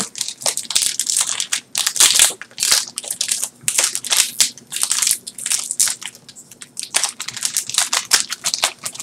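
Plastic and foil wrapping of trading card booster packs crinkling irregularly as hands handle it and work it open, with a brief lull about six seconds in.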